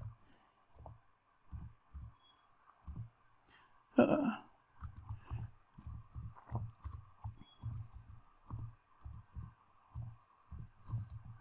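Computer keyboard being typed on: irregular key clicks and soft thuds, sparse at first and coming faster from about five seconds in. One short, louder sound comes about four seconds in.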